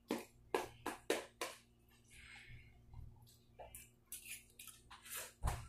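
A fork clicking and scraping against a clear plastic container of noodles as they are stirred and eaten: a quick run of sharp clicks at the start, a softer scrape in the middle, and more clicks near the end.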